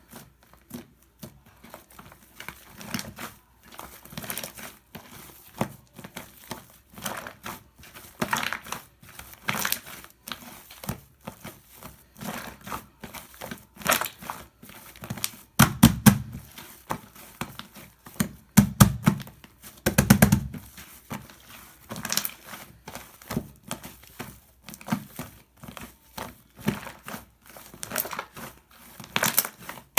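Shaving foam being squished and worked by hand, a dense irregular crackling with occasional louder squelching presses.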